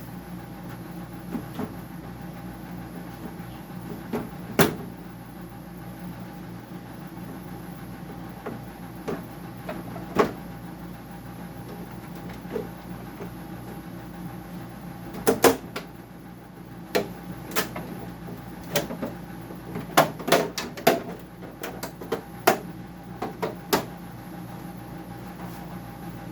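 Scattered sharp plastic clicks, snaps and knocks as the snap-together plastic case of a General Electric dehumidifier is worked apart by hand, coming more often in the second half. A steady low hum runs underneath.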